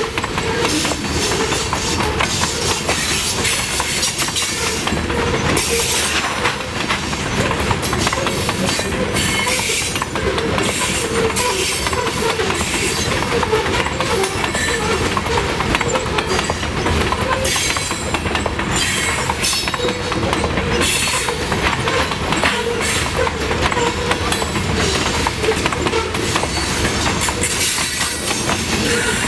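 Loaded CSX covered hopper cars of a grain train rolling past, their wheels clattering steadily over the rail joints. Wavering wheel squeal on the curve is loudest in the first few seconds.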